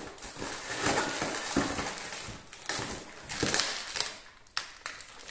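Plastic packaging bag crinkling and cardboard box rustling as a bag of metal mounting brackets is lifted out of a box, with scattered clicks. It quietens about four seconds in.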